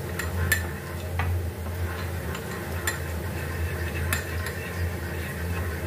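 Metal spoon stirring a watery spice paste in a ceramic bowl, clinking against the bowl a handful of times, over a steady low hum.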